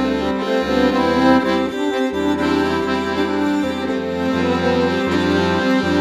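Accordion playing an instrumental folk tune, with held chords over a steady low bass.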